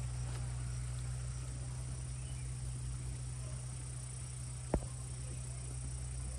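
Steady high-pitched insect chorus over a low steady hum, with a single sharp click about three quarters of the way through.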